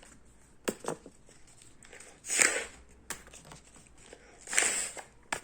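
Breath puffed into a folded paper balloon to inflate it: two breathy rushes about two seconds apart, with short papery clicks and crackles from the paper being handled in between.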